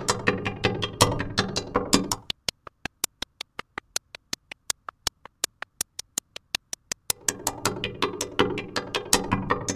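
Synthesized percussion from a Pure Data patch: enveloped noise bursts run through granular readers and a reverb, playing a dense, reverberant drum pattern. About two seconds in the drum body and reverb drop away, leaving only short dry clicks at an even rate of about seven a second. The full reverberant pattern comes back about seven seconds in.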